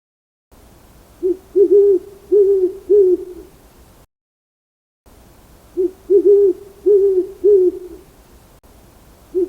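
Owl hooting: a rhythmic series of about five low hoots, then a full break about four seconds in, and the same series again.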